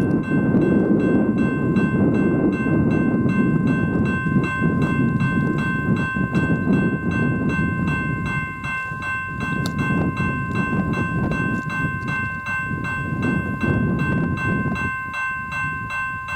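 Freight train passing: a low rumble with an even clicking of wheels, about three a second, and several steady high tones ringing over it. The rumble eases somewhat in the second half.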